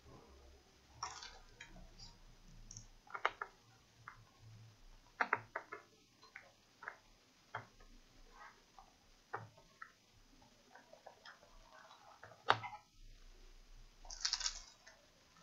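Scattered light clicks, taps and rustles of hands handling small screws and a screwdriver on a laptop's bottom case, with one sharp click about three-quarters of the way through and a short scraping rustle near the end.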